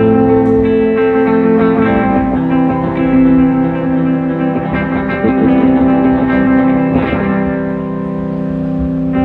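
A live rock band playing an instrumental intro on electric guitars, with chords ringing on steadily.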